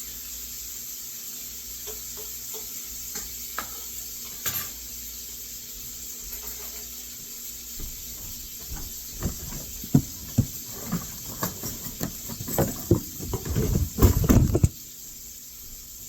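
Bacon frying in a pan: a steady sizzle, with popping and crackling that starts about halfway through, grows dense and loud, and cuts off suddenly near the end.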